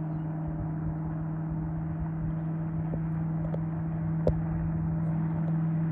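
Checkmate powerboat's engine running at speed across the water, heard from a distance as a steady drone at one pitch that grows slightly louder as the boat approaches. A single sharp click about four seconds in.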